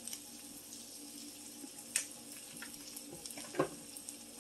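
Rice and mixed vegetables frying in an oiled pan: a steady soft sizzle. There is a sharp click about two seconds in and a louder knock a little past three and a half seconds.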